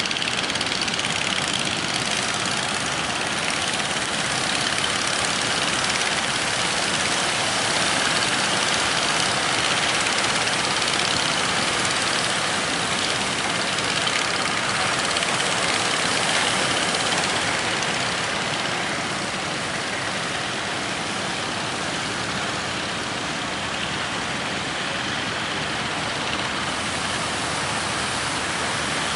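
Fishing boat's engine running under a steady rush of wind and water, easing slightly about two-thirds of the way through.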